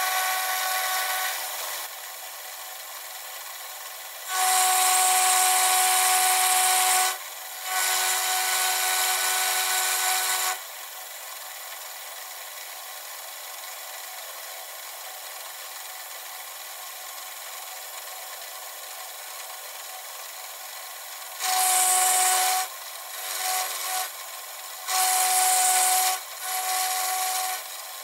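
Vertical milling machine running with a 3/8-inch end mill side-milling a metal block in a vise. The cutting comes in louder stretches with a steady whine and hiss: one at the start, two of about three seconds each in the first half, and four short ones near the end. Between them the spindle runs on at a lower, steady level.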